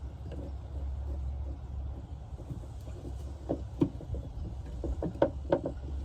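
Clicks and knocks of a screw and hand tool against the tailgate latch hardware as the screw is threaded in by hand, a run of sharp clicks in the second half over a low steady rumble.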